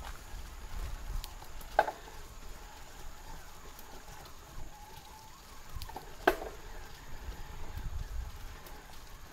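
A mountain bike riding along a trail: a steady low rumble of wind and tyres on the camera microphone, broken twice by a sharp clack with a short ring, about a second and a half in and again near six seconds.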